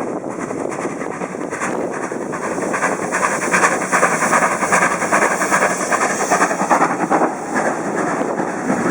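Steam-hauled heritage passenger train passing close by, its carriage wheels clicking over the rail joints; it swells to its loudest in the middle and eases towards the end.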